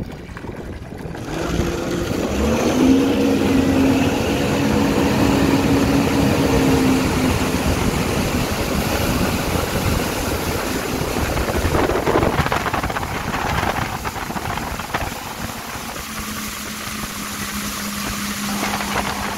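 Yamaha VX1100 jet ski engine and jet pump opening up from low revs about a second in, its pitch climbing as it pulls a wakeboarder out of the water. It then runs steadily at speed under rushing spray and wind. Near the end it settles to a steadier, lower hum.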